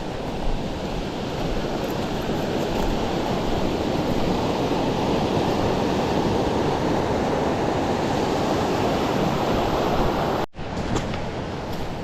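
Creek water rushing over rocks: a steady, full rush of water that grows a little louder partway through. It cuts out for an instant about ten and a half seconds in.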